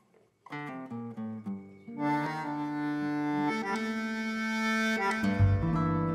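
A live tango trio begins a tune: held, chord-like notes start about half a second in, and strong rhythmic bass notes join near the end.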